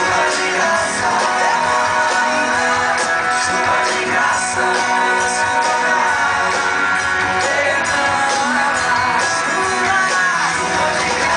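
Live band performing: a woman singing over electric and acoustic guitars, bass and drums.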